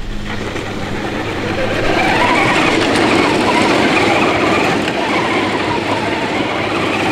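1/8-scale RC crawler driving over loose dirt: electric motor and gear whine mixed with tyres crunching on gravel, growing louder about two seconds in and easing off slightly near the end.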